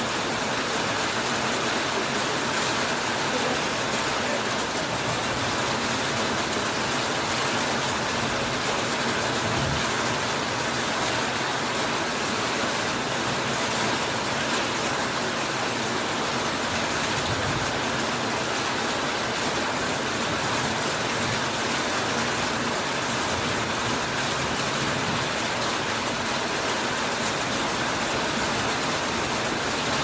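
Heavy rain falling steadily on a corrugated metal roof and broad leaves, an even hiss that holds at a constant level.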